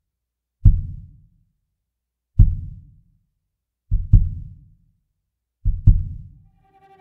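Solo cello music opening with deep, heartbeat-like thumps about every one and a half to two seconds, the last two doubled, and held cello notes coming in near the end.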